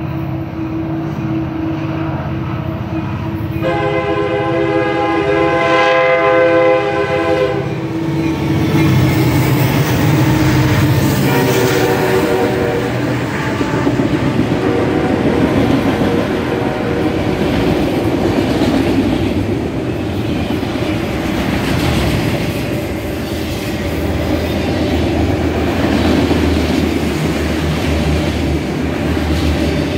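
Canadian National freight train approaching and passing. About four seconds in, the lead diesel locomotive sounds its multi-note horn for about four seconds. The locomotives then go by and the autorack cars follow, rumbling and clacking over the rail joints.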